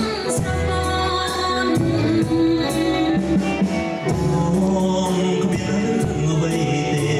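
Live Khmer pop band playing with drum kit, keyboards and electric guitar, and singers trading lines: a woman singing first, then a man taking over about three seconds in, over a steady drum beat.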